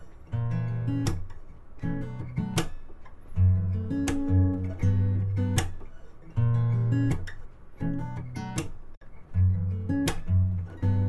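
Background music: strummed acoustic guitar over low bass notes, with sharp strums recurring every second or so.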